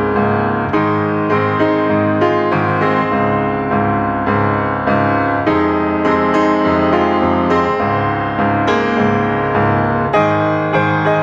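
Background music: a piano playing a gentle tune of chords and melody, notes struck at a steady pace.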